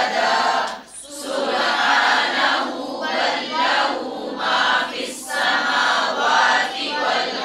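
A group of students reciting a Quran verse aloud together in unison, many voices chanting in phrases with short breaks between them.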